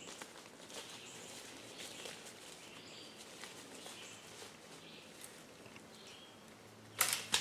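Quiet woodland background with scattered faint bird chirps. A short, louder burst of noise comes near the end.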